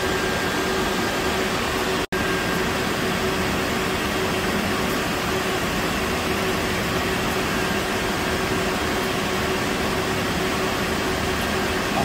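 Steady whir of rack-mounted server and equipment cooling fans, with a constant hum tone under it. The sound cuts out for a split second about two seconds in.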